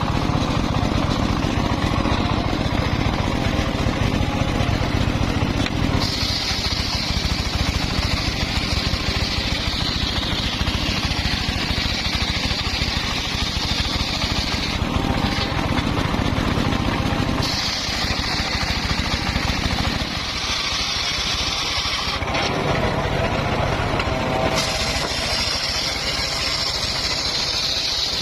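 Engine-driven circular saw running steadily with a low, pulsing rumble. A higher hiss comes in and drops out several times as the blade cuts through wood.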